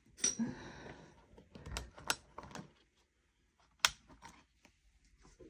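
Discbound planner's frosted plastic cover being pressed onto its gold discs: a few irregular sharp clicks as the punched edge snaps into place, with soft rustling of the cover and pages between them.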